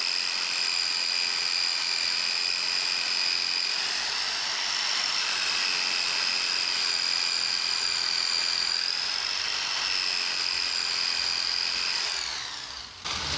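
Electric drill with a sanding disc running at a steady high whine, sanding down the raised rubber tread blocks of an unevenly worn (cupped) tyre. Near the end the trigger is released and the motor winds down to a stop.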